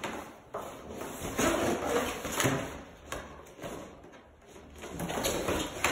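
Latex balloons rubbing and squeaking against each other, with short knocks and rustles, as hands work a twisty tie into a balloon cluster.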